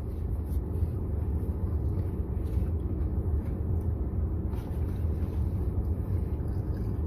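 Steady low rumble of a car idling, heard inside the cabin, with a few faint clicks.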